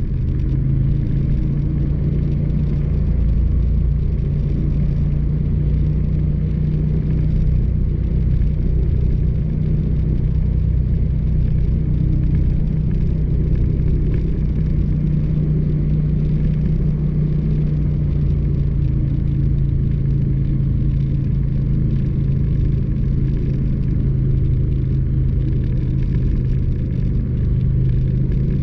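Motorcycle engine running at a steady cruising speed, its drone holding nearly one pitch, over a continuous low rumble of tyres on a gravel road and wind.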